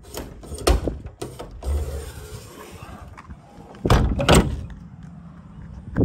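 Metal knocks and clunks around the school bus's rear emergency door as someone climbs through and handles it, with one loud bout about a second in and a louder cluster about four seconds in.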